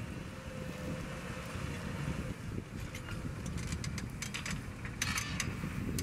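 New Holland T7 270 tractor's six-cylinder diesel engine running under load while pulling a Lemken EurOpal reversible plough. In the second half a run of sharp clicks and rattles sounds over the engine, densest near the end.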